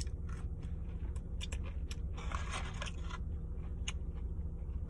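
Close-up mouth sounds of someone chewing food: soft, irregular wet clicks, with a denser noisy crunch lasting about a second a little past the middle, over a steady low hum.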